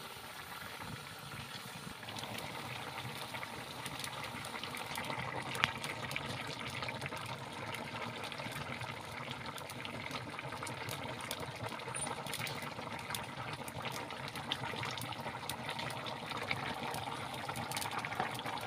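Watery vegetable curry bubbling at a boil in an iron kadai over a wood fire, a steady seething with many small pops and crackles.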